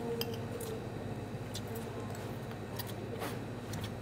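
Faint, scattered clicks and clinks of forks and spoons against plates and bowls as people eat, over a steady low hum.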